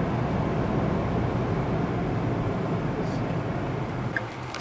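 Steady low rumble and hum of a vehicle running, heard from inside the vehicle. It eases slightly near the end, with a few small clicks.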